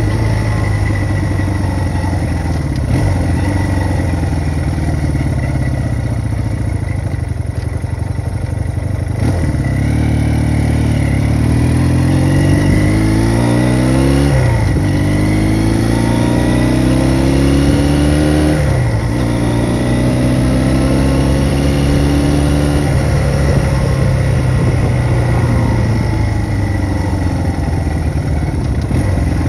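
1974 Honda CB200's air-cooled parallel-twin engine under way. It runs steadily, then accelerates through the gears: the pitch rises and drops back at two upshifts, then it settles into a steady cruise.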